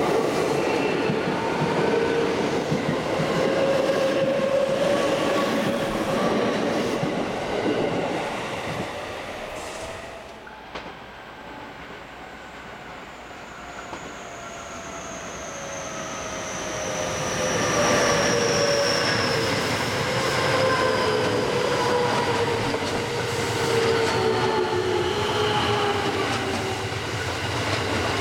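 JR West commuter electric trains: the first runs beside the platform and fades away about ten seconds in. A second train then approaches and passes close by with wheel and rail noise, its motor inverter whine falling slowly in pitch as it slows.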